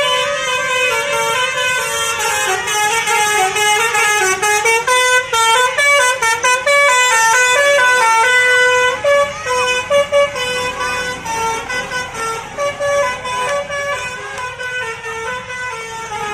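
Indonesian 'telolet' Basuri multi-tone bus horn playing a melody of short notes that step up and down, quickest and loudest about halfway through, then slower and softer toward the end.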